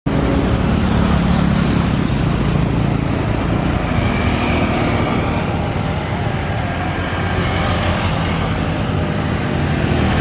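Jet airliner engines running, a loud steady rumble with a faint high whine.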